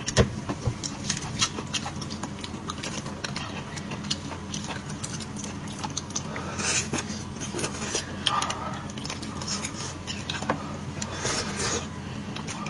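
Eating beef bone marrow: a metal knife scraping and clicking against the bone and plate in many small ticks, with a few short sucking and smacking mouth sounds as marrow is eaten straight from the bone.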